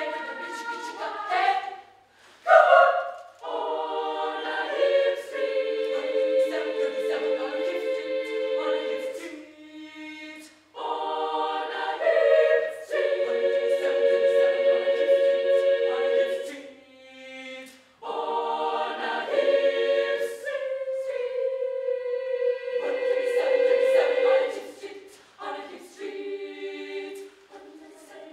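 Children's choir singing a cappella: held chords in high voices, phrase after phrase, with short breaks between phrases.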